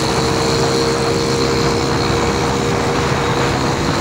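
A vehicle engine running at a steady speed on the road, a constant drone with a steady tone over wind and road noise.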